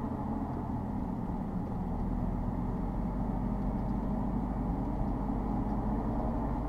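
Steady road and engine noise inside the cabin of a Mitsubishi Delica D:5 driving along a road, a low, even drone.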